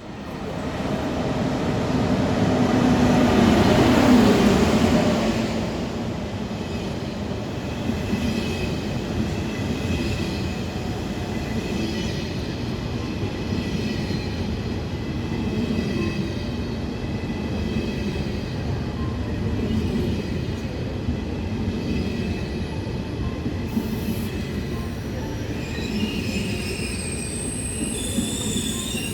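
KTX high-speed train running through the station. The noise builds to its loudest about four seconds in, then settles into a steady rumble of wheels on rail, with thin high whining tones above it and more high tones coming in near the end.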